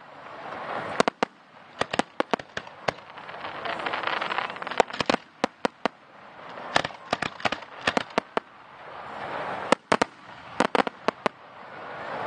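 Fireworks going off: volleys of sharp bangs in quick succession every second or two, between them swells of crackling hiss that rise and fade.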